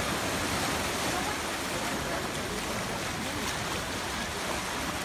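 Ocean waves and surf washing steadily, a continuous rush of water noise with no single loud splash.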